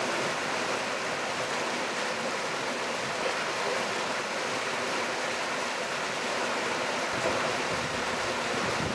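Steady rush of river water pouring over a small rapid into a rock pool, with a deeper rumble joining near the end.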